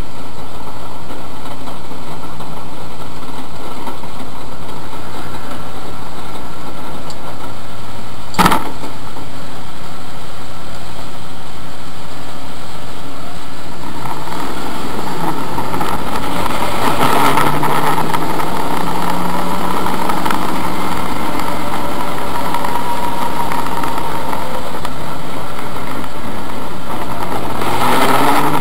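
BMW race car's engine, heard from inside the stripped cabin: idling steadily at first, with one sharp knock about eight seconds in, then pulling away and running at low speed from about halfway, rising in pitch again as it accelerates near the end.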